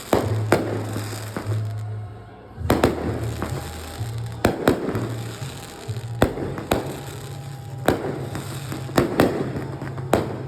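Aerial fireworks going off in a run of sharp bangs, about fifteen at uneven intervals, each followed by a crackling tail. Under them, low music notes change pitch every second or so.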